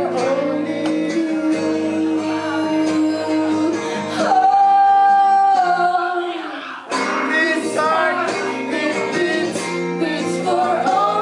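A woman sings live to her own acoustic guitar, holding one long note about four seconds in before carrying on with the song.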